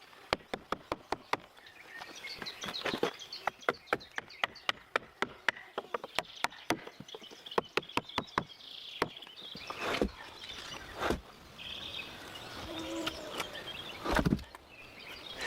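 A long run of sharp knocks and taps, quick at first and then irregular, with a few louder strikes later on. Birds chirp faintly in the background.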